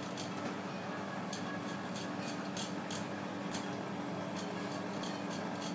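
Knife blade cutting along a large pike conger on a wooden board: a run of short crisp scrapes and ticks, in two bursts about a second apart, over a steady low hum.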